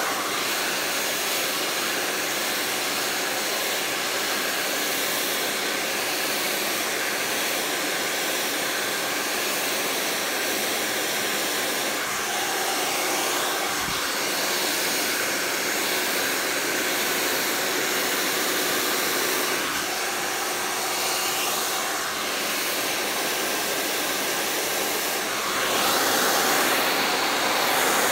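Handheld hair dryer blowing steadily during a blow-dry, getting a little louder about twenty-five seconds in.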